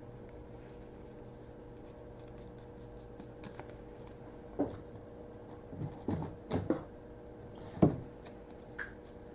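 Trading cards and plastic sleeves being handled on a table: light ticks and scratches, then a few soft knocks, the loudest near the end, over a faint steady electrical hum.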